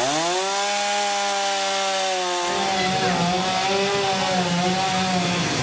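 Petrol chainsaw revving up to full speed and cutting through wood, its pitch steady at first and then wavering under load from about two and a half seconds in.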